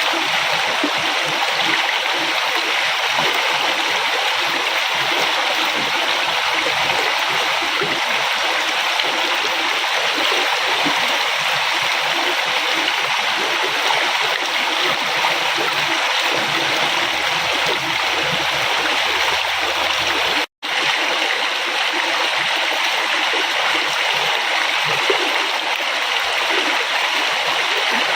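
A flowing river: water rushing and gurgling steadily over its bed. It cuts out for an instant about twenty seconds in, then carries on as before.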